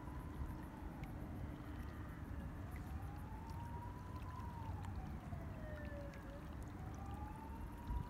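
Steady low rush of water with a faint siren-like wail over it, slowly rising and falling in pitch about every four seconds.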